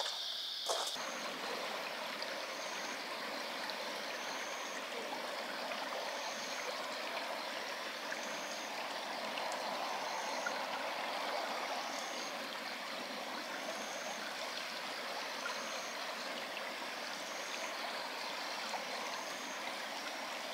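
River water running steadily, with a faint high chirp repeating about once a second.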